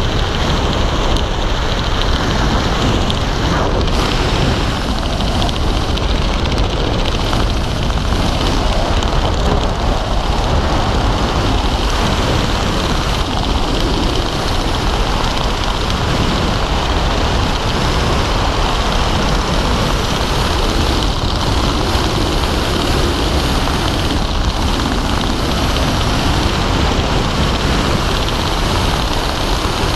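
Steady, loud wind rushing over a helmet-mounted action camera's microphone during a descent under an open parachute canopy.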